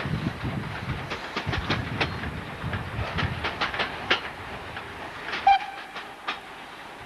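Railway train wheels clicking over rail joints, the clicks thinning out and fading as the train moves off. A brief high tone sounds about five and a half seconds in.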